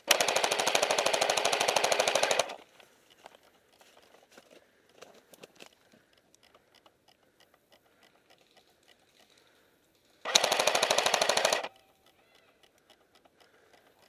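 Airsoft gun firing two full-auto bursts. The first is rapid and runs about two and a half seconds from the start. The second is shorter, just over a second, about ten seconds in.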